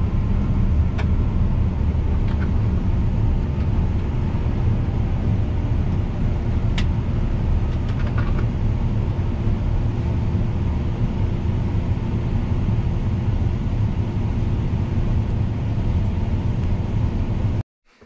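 John Deere combine harvester's engine running steadily, heard from inside the cab as a low rumble with a few faint clicks. It cuts off suddenly near the end.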